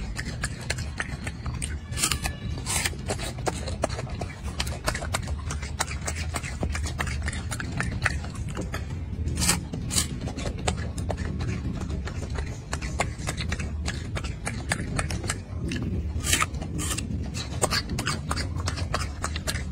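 Golden snub-nosed monkey biting and chewing crisp fruit close by, an irregular run of crunching clicks with a few sharper bites, over a steady low rumble.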